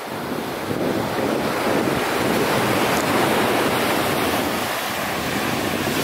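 Surf washing up a sandy beach, a steady rushing noise that builds over about the first second, with wind buffeting the microphone.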